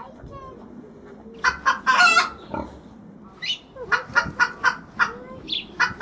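Chickens clucking and squawking in short loud bursts, a cluster about a second and a half in and another run from about four to five and a half seconds in.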